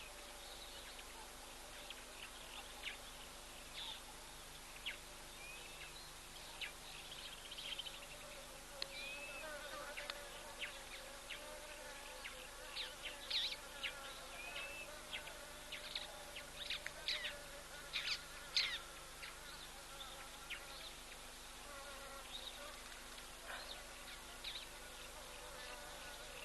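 Insects buzzing steadily, with many short, high chirps and clicks scattered over it, busiest in the middle.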